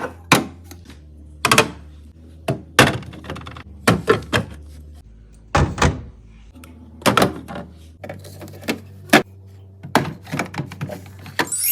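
Irregular knocks and clunks as containers and food items are set down and moved about while a refrigerator is restocked, over a low steady hum.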